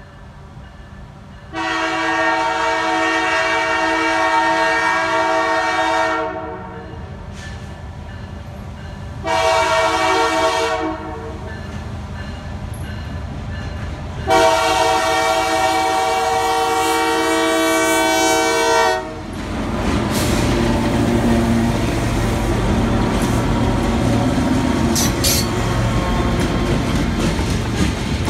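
Diesel freight locomotive's multi-note chime horn sounding for a level crossing: a long blast, a short one, then another long one. The locomotives then pass close by, engines running and wheels clattering over the crossing, followed by loaded covered hopper cars rolling past.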